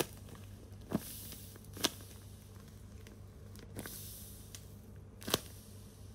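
A tape-covered paper squishy being squeezed and handled in the hand: the paper and tape crinkle, with about five sharp crackles, the loudest near the end.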